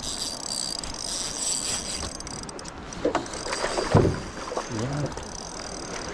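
Spinning reel's loosely set drag clicking as line is pulled off by a hooked rainbow trout, with a few short knocks in the second half.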